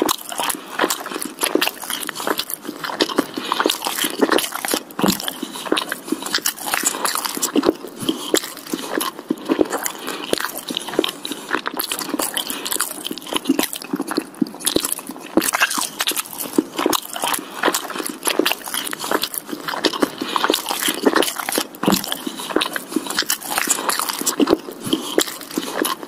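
Continuous crunchy chewing and biting, like an animal grazing on grass, made of many quick crackling clicks.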